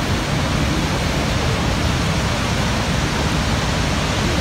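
Horseshoe Falls at Niagara Falls: the massive volume of water pouring over the brink makes a steady, unbroken rushing noise, heaviest in the low end.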